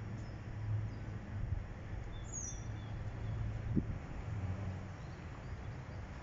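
Distant diesel locomotive of a work train running, a low steady rumble, with a short bird chirp about two seconds in.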